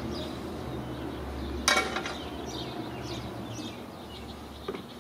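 A sharp plastic click about two seconds in and a fainter one near the end, as a screwdriver and trim tool work the push-pin clips out of the plastic radiator support cover. Faint chirping and a low steady hum are heard in the background.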